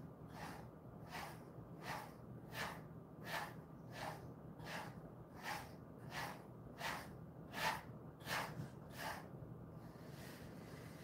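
A hand massaging a Jindo-mix dog, rubbing over its short fur in a brisk swish about every 0.7 s. The strokes stop shortly before the end. A low steady hum runs underneath.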